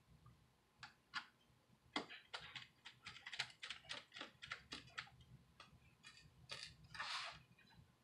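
Faint clicking of a small screwdriver turning tiny screws into a laptop's metal hard-drive frame: scattered clicks, then a quick run of them in the middle, with a brief swish near the end.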